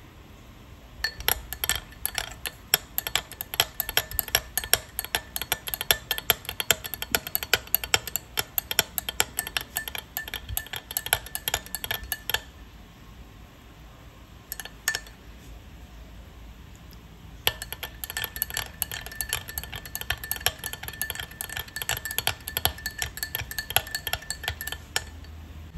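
Metal spoon stirring soy milk in a glass mug, clinking quickly and continuously against the glass. It runs for about eleven seconds, pauses with a brief couple of clinks, then resumes for about eight seconds more.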